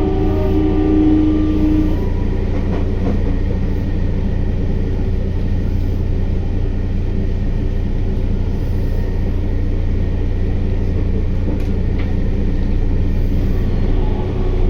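Sendai Subway Namboku Line 1000N-series train running, heard from inside the car: a loud, steady low rumble of the wheels and car body. The IGBT-VVVF inverter's motor whine, several steady tones together, stops about two seconds in, and the train runs on with only the rumble.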